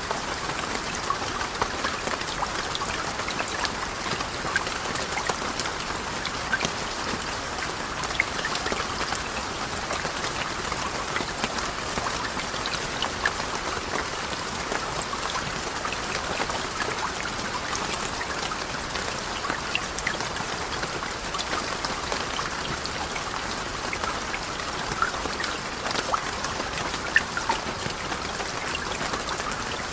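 Steady falling-water sound like rain: an even hiss dotted with many small, separate drop ticks, played as a masking sound for tinnitus.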